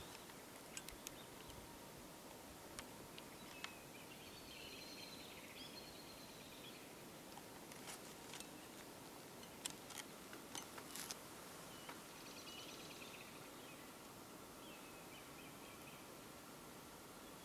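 Quiet outdoor ambience with a steady hiss. A small songbird sings faintly twice, about four and about twelve seconds in, and a scatter of sharp clicks falls in the first few seconds and again around eight to eleven seconds in.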